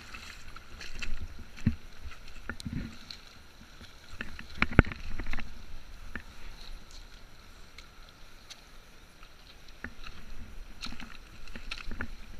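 Shallow river water lapping and splashing against a camera housing at the water's edge, a steady low rumble broken by irregular knocks and splashes, the loudest about five seconds in.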